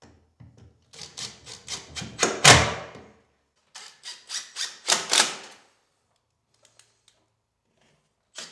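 Power driver driving 25 mm screws through a pre-countersunk cleat in two short bursts of rapid clatter, the first and louder about a second in, the second near the middle.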